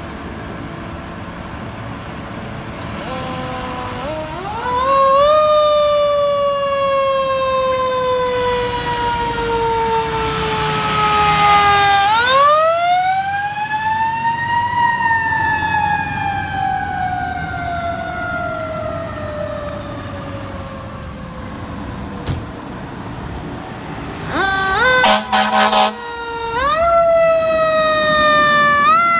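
Fire trucks' sirens winding up quickly and then slowly falling in pitch, again and again, over the rumble of the heavy trucks' engines. Near the end there are several short air horn blasts.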